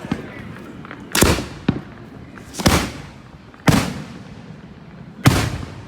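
Fireworks shells bursting overhead: four loud booms over about four seconds, each with a short echoing tail, and a smaller crack between the first two.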